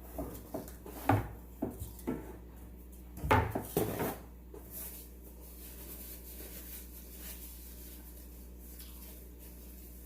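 A run of clicks, knocks and rubbing from hands handling seafood and dishes while eating, loudest about one second and three and a half seconds in, then dying away to a steady low hum.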